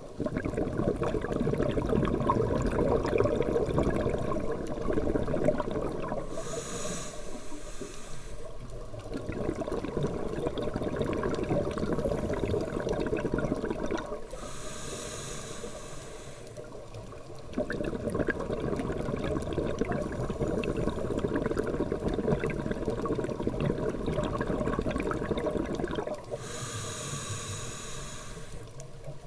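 Scuba diver breathing through a regulator underwater: long, bubbling exhalations alternating with short, hissing inhalations, three breaths in all.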